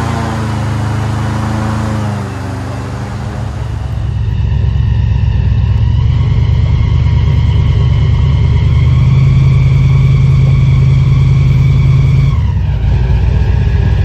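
Airboat engine and air propeller running loud. The engine eases off for the first few seconds, then throttles up about four seconds in and holds a steady drone as the boat skims across the marsh. Near the end the pitch dips briefly before picking up again.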